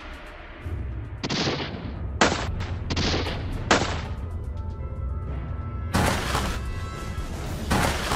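Edited-in blast sound effects for the toy dinosaur's smoke breath: short noisy bursts, four in quick succession from about a second in and two more later, over background music.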